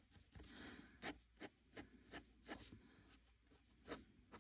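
Faint short strokes of a yellow acrylic paint marker on sketchbook paper: a string of quick scratches and light taps, with a softer hissing stroke about half a second in.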